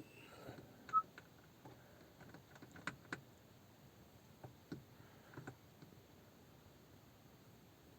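Faint clicks from the Honda City's dashboard dimmer button being pressed repeatedly to step the interior illumination up to maximum brightness. There is a single short electronic beep about a second in.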